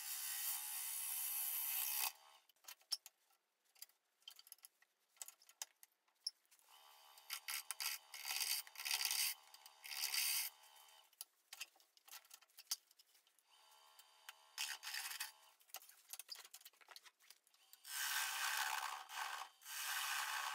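Gouge cutting a spinning spalted ash bowl blank on a wood lathe: a hissing, shaving sound in four separate passes of a few seconds each, with quieter gaps and light clicks between.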